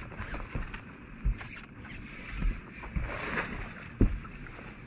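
Irregular knocks and bumps on a fishing boat over steady rustling of handling, the loudest knock about four seconds in.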